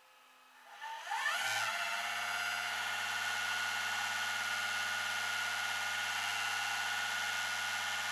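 Flatbed tow truck's winch starting up with a quick rising whine about a second in, then running steadily as it reels in the cable and pulls a car up the tilted deck.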